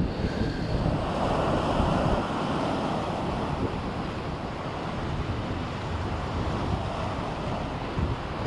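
Sea waves washing against rocks, with wind buffeting the microphone; a wave surges loudest about a second in.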